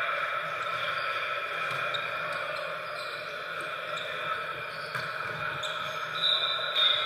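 Indoor volleyball rally in a gymnasium: a few sharp ball contacts over steady hall noise, with a brief high-pitched squeal near the end.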